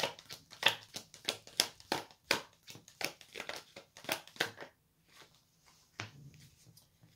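A deck of tarot cards shuffled by hand: a quick, irregular run of card flicks and slaps that stops after about four and a half seconds, followed by one more card sound about six seconds in as a card is drawn.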